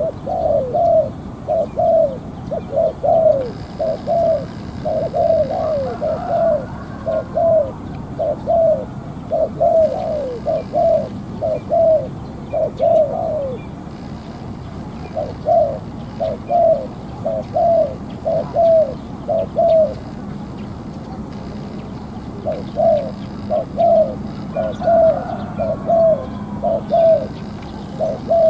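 Spotted dove cooing in long runs of short, rapid coos, about two to three a second, stopping briefly twice before starting again.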